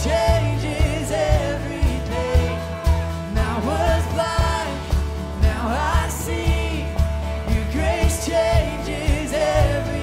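Live worship band playing: a man singing lead over strummed acoustic guitar, a steady bass line and a regular drum beat.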